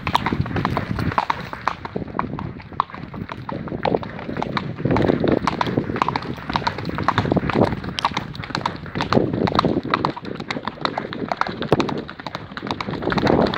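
Hooves of ridden horses striking a stony dirt track at a brisk pace: a dense, irregular clatter of hoofbeats.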